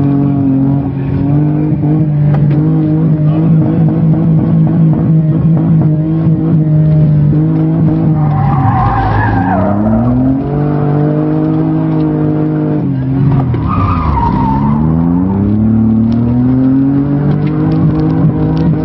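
Small hatchback's engine pulling hard during a slalom run, heard from inside the cabin. Twice the engine pitch drops and then climbs again, and each time the tyres squeal through the turn.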